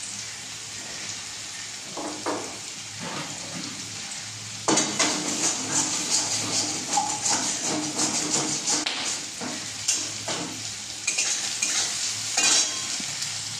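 Food frying in hot oil in a metal wok-style pan (kadai), a steady sizzle. About five seconds in it gets louder, with a spatula stirring and scraping against the pan in quick strokes.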